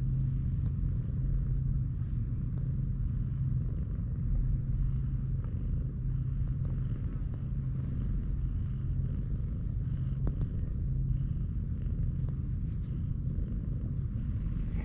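Cat purring in a steady low rumble while being stroked under the chin.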